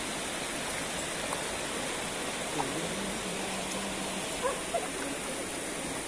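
Steady rush of water from a waterfall and its stream, with faint voices in the background about halfway through.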